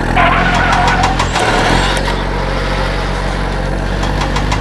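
Tractor engine running steadily with a low, even hum as the tractor moves off to work.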